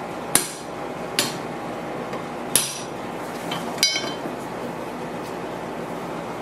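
Steel hammer striking the steel tang and pommel of a Belgian M1924 bayonet on a bench vise: four sharp metal-on-metal blows spread over about four seconds, the last one ringing briefly.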